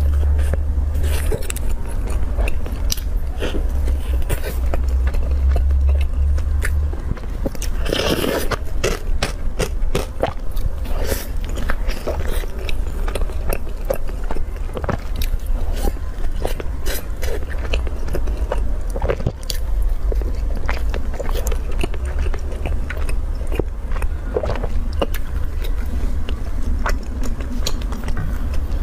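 Close-miked biting and chewing of a soft chilled bread bun (ice bread), with many short wet mouth clicks. A steady low hum runs underneath.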